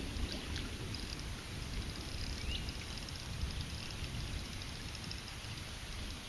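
Outdoor wetland ambience: a steady hiss over a low rumble, with faint repeated high chirping and a single short rising bird chirp about two and a half seconds in.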